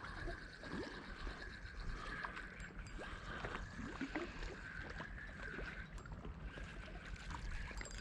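Small waves lapping and gurgling against a stone quay, with scattered faint ticks and a steady high-pitched hum underneath.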